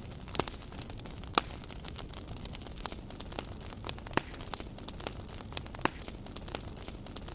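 Wood campfire crackling, with sharp pops at irregular intervals, the loudest about a second and a half in, over a steady low background rumble.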